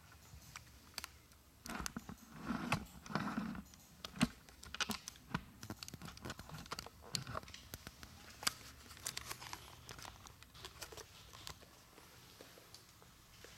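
Small plastic kit parts being handled and fitted together: scattered light clicks and taps, with a stretch of rustling from about two seconds in to about three and a half.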